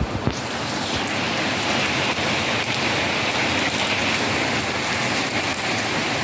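Steady heavy rain falling on surfaces.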